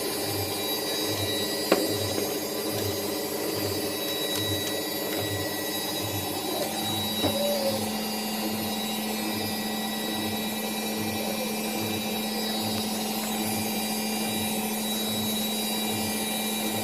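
Handheld hair dryer running steadily, blowing hair dry. A single click comes about two seconds in, and a low hum joins about halfway through.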